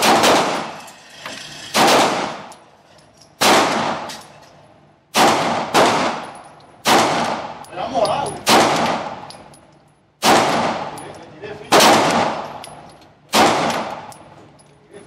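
Sig Sauer 9mm pistol firing slow, deliberate single shots, about nine in all, one every one and a half to two seconds. Each report rings off in the hard, echoing space of an indoor concrete range.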